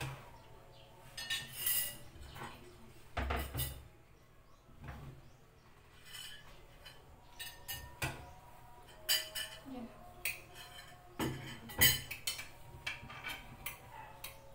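Spoons clinking and knocking against plates and bowls as rice and curry are dished out and eaten, in irregular short clinks, the loudest about twelve seconds in.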